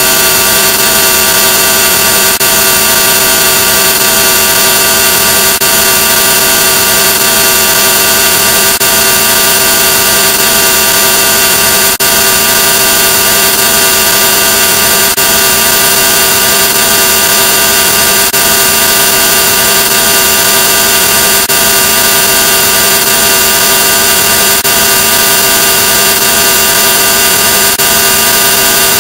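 Loud, heavily distorted, effect-processed audio: a dense, steady buzzing drone of many held tones over hiss, with faint ticks about every second and a half.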